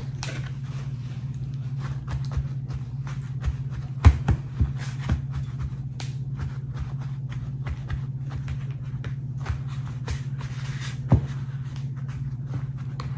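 Paper towels rustling and patting against wet catfish fillets on a paper plate as they are dabbed dry, with scattered soft clicks and a couple of sharper knocks, over a steady low hum.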